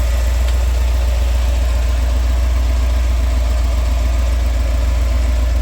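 1991 Ford F-150's 5.8-litre V8 idling steadily, running on a newly installed fuel pump.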